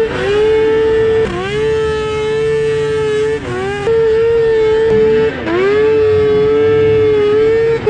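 Snowmobile two-stroke triple engine held at high revs, a steady high-pitched scream. Its pitch drops and climbs back about four times as the throttle is eased and reopened, the longest dip about halfway through.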